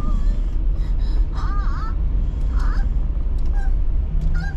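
Steady low road and engine rumble of a car being driven, heard from the cabin. Over it come a few short, wavering high calls, the longest about a second and a half in.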